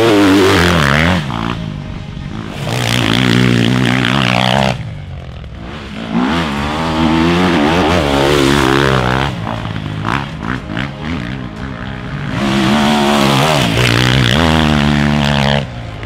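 Motocross bike engine revving hard on a sand track, its pitch climbing and falling in several loud surges as the rider opens and closes the throttle through the corners.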